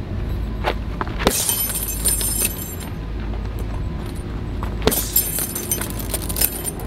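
Gloved punches thudding into a filled heavy punch bag several times, over a steady low rumble. After the two hardest blows, about a second in and near five seconds, the bag's hanging chain jangles for about a second.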